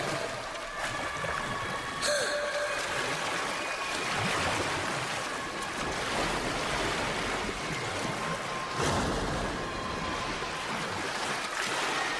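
Continuous splashing and churning water from a swimmer's freestyle strokes in a pool, with a few faint steady held tones underneath.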